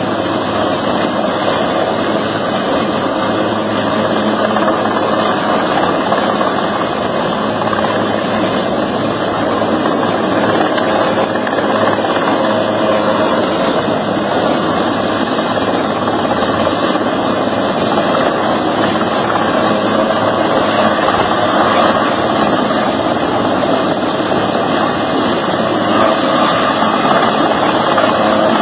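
Helicopter running steadily: a loud, even noise of engine and rotor that does not change.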